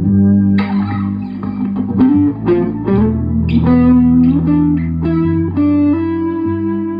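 Electric guitar playing a short lead phrase of picked notes with a bend and slides, then settling on a held chord that rings out.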